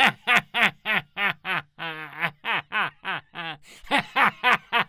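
A cartoon wolf's male voice laughing smugly: a long string of short, quick chuckles, about four a second, each dipping in pitch.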